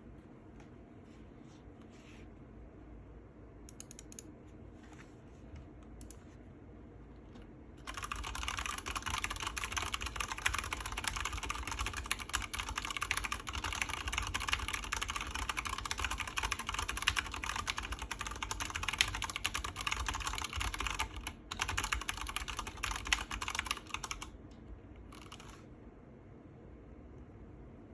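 Typing on an Anne Pro 2 mechanical keyboard with stock MX Brown switches. A few scattered keystrokes at first, then fast, continuous typing from about eight seconds in for some sixteen seconds, which then stops.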